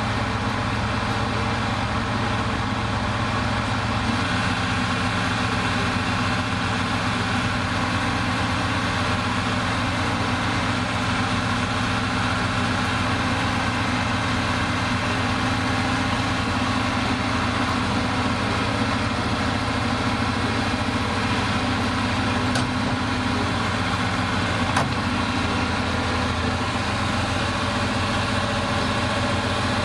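Bulldozer's diesel engine idling steadily, with a couple of faint clicks in the second half.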